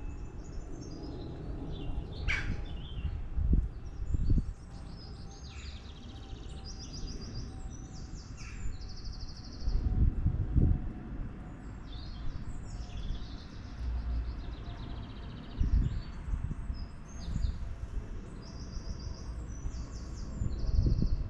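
Garden birds chirping and calling, with many short high notes and fast rattling phrases throughout. Low rumbles break in every few seconds.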